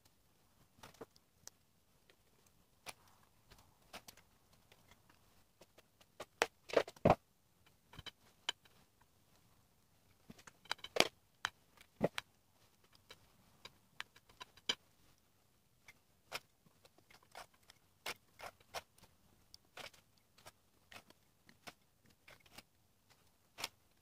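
Scattered light clicks and taps of a spoon scraping and knocking against a glass baking dish as mascarpone cream is spread and biscuits are laid in, with a few louder knocks about seven and eleven seconds in.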